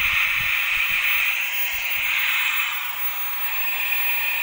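LG CRT television's speaker giving out a loud, steady hiss of static, dipping briefly about three seconds in. This is the set's sound fault: a loud noise that the volume control does not lower, which the repairer puts down to a faulty audio IC (IC02).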